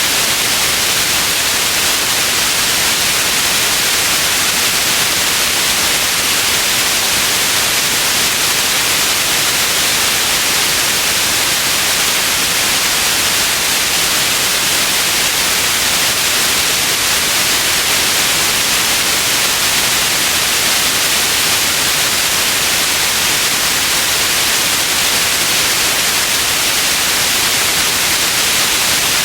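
Steady white noise: an even, unchanging hiss, brightest in the high frequencies, with no events or variation.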